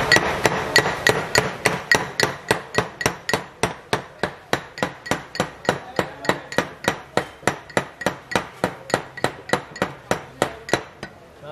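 Iron pestle pounding in a cast-iron mortar, mashing hilsa tail and head for a bhorta: a steady run of ringing metallic strikes, about four a second, that stops shortly before the end.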